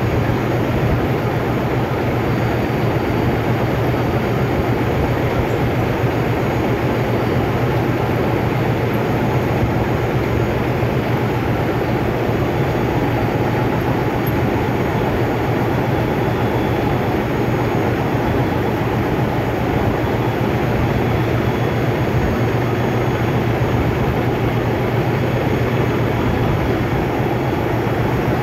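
Continuous loud drone of heavy machinery running, with a strong low hum, steady and unchanging throughout.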